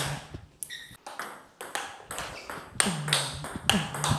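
Table tennis rally: a ping-pong ball struck by rackets and bouncing on the table, about ten sharp clicks at an uneven quick pace. One of the rackets is a DHS PG9 seven-ply all-wood blade faced with Andro Hexer Duro rubbers.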